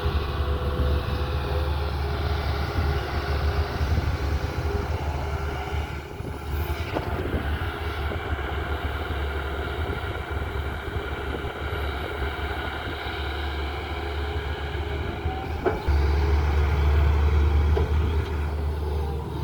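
Tata Hitachi excavator's diesel engine running steadily under working load. It gets noticeably louder about four-fifths of the way through.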